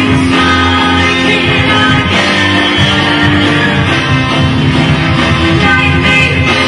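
Live rock and roll band playing: a male lead singer over a full drum kit and backing instruments, loud and continuous.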